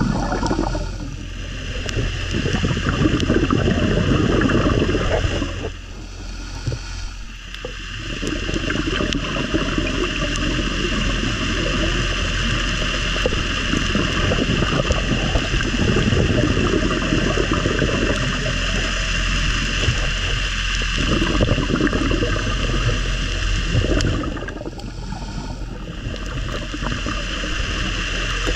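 Muffled underwater noise of a working diver: air bubbling and rushing past the camera over a constant low hum, with quieter lulls about six seconds in and again near the end.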